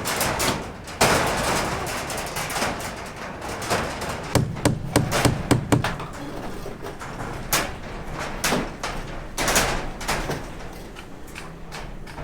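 Irregular knocks, thuds and clatter of building work, with a quick run of knocks about halfway through and a scraping rustle near the start.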